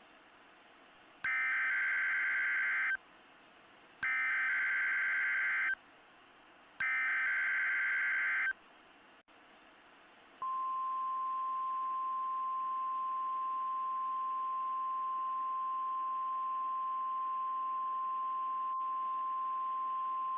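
Three short bursts of an EAS/SAME digital header, a harsh data screech, about a second apart, then the NOAA Weather Radio 1050 Hz warning alarm tone held steady for about ten seconds. Faint hiss fills the gaps.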